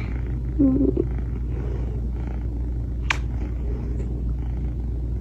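Domestic cat purring steadily, a continuous low rumble, with a short higher-pitched sound just under a second in and a sharp click about three seconds in.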